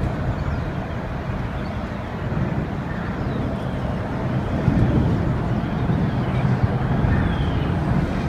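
Steady low rumble of fire apparatus engines running at a fireground.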